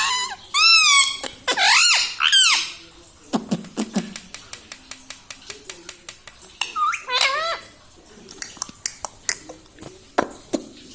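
Ring-necked parakeet giving squeaky, warbling calls, several in the first two and a half seconds and another about seven seconds in, with a long run of rapid short clicks in between.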